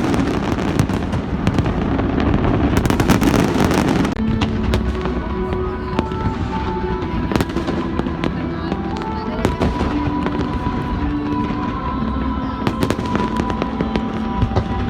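Aerial fireworks crackling and bursting: a dense shower of crackles for about the first four seconds, then scattered bangs and pops over music with long held notes.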